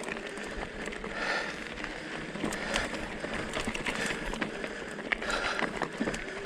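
Hardtail electric mountain bike climbing a rocky trail: tyres crunching over gravel and stones with many small clicks and rattles. The rider breathes hard twice, about a second in and near the end.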